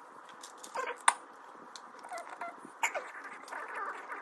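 Plastic building bricks clattering as a hand rummages through a tray of loose parts, then bricks being handled and pressed together, with scattered sharp clicks; the sharpest click comes about a second in.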